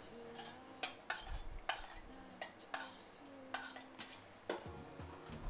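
Metal spoon stirring liquid in a stainless steel bowl, scraping and clinking against the bowl in several separate strokes roughly a second apart.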